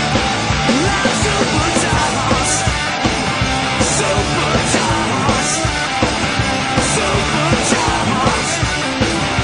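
Loud rock music soundtrack, running steadily.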